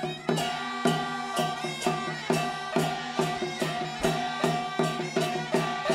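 Live traditional Taiwanese glove-puppet theatre music: percussion struck steadily about twice a second, over held melodic notes.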